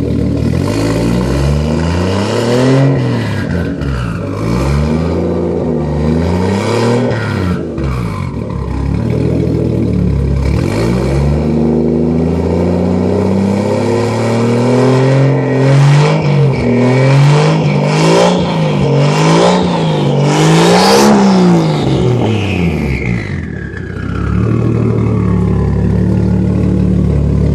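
Toyota Supra Mk4's turbocharged inline-six through a 4-inch straight-pipe exhaust, revved up and let fall back again and again between steady idle. After the last and highest rev the turbo whistle sweeps down as it spools down, before the engine settles back to idle.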